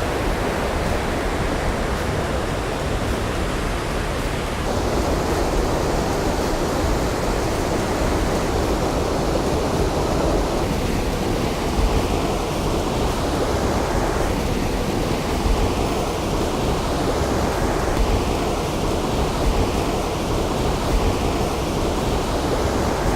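Large, high waterfall, water falling and crashing into its pool: a steady, heavy rush of white noise.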